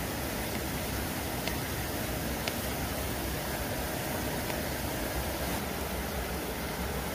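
Steady rushing of a flowing river, with a couple of faint clicks of a small knife cutting food on a board.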